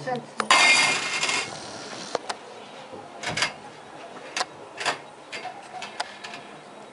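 A loud burst of rustling about half a second in, lasting about a second, followed by a handful of scattered light clicks and knocks.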